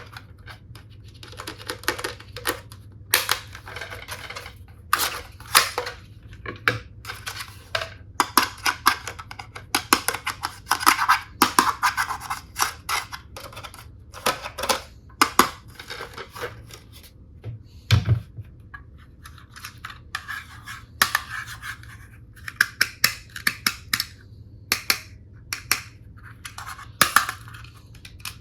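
Hands unboxing plastic toy tool sets: an irregular run of clicks, taps, scraping and crinkling from packaging and hard plastic pieces, with a heavier knock about two thirds of the way through.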